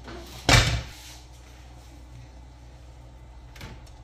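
A single heavy thump about half a second in, then a low steady hum with a faint click near the end.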